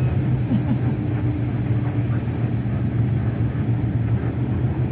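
Steady low rumble of a vehicle in motion.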